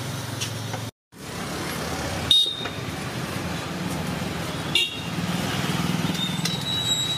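Street traffic noise with vehicle horns, cut by a brief dropout about a second in. Two short, sharp clinks with a high ring come through over the traffic.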